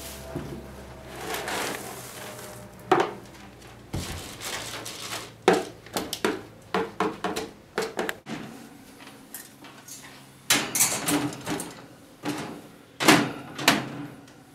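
Plastic scoop raking through pelleted litter in a plastic high-back litter pan: a string of short clattering knocks and scrapes as the pellets rattle against the scoop and the pan.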